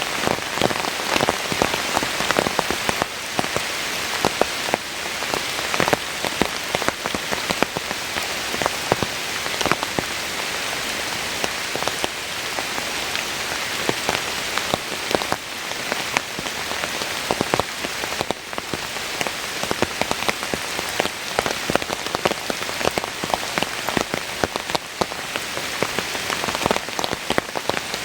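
Heavy, steady rain, with many sharp individual drops ticking close by.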